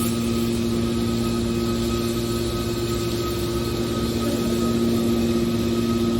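Metal baler machine running with a steady hum, several constant tones over an even mechanical noise, getting slightly louder near the end.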